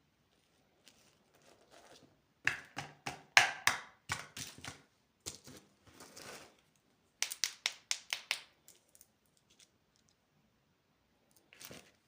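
Plastic candy packaging being handled and torn open, crinkling and crackling in quick bursts of sharp snaps, with a last short crinkle near the end.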